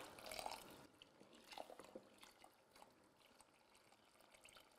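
Very faint trickle of water poured from a kettle into a cooking pot, with a few faint ticks.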